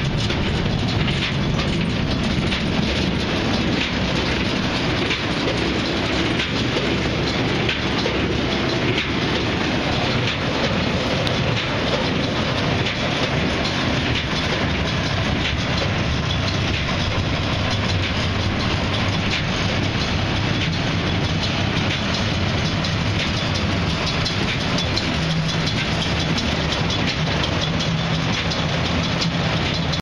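Lely Welger D4006 round baler running on a tractor's PTO, its rollers and chains clattering steadily.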